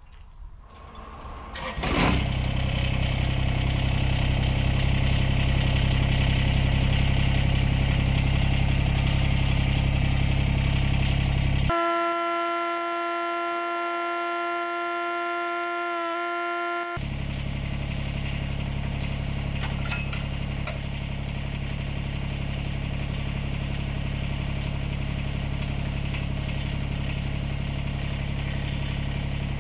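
Kubota BX25D compact tractor's three-cylinder diesel engine running steadily. For about five seconds in the middle the engine sound drops away and a steady high-pitched whine made of several stacked tones takes its place, then the engine sound returns.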